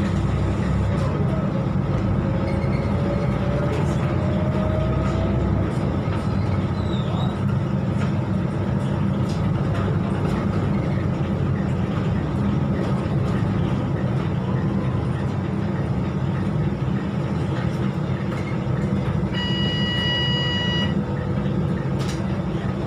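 Volvo B12BLE bus's rear-mounted diesel engine and drivetrain running on the move, heard from inside the cabin as a steady low drone, with a faint rising whine a few seconds in. Near the end, a short electronic beep sounds for about a second and a half.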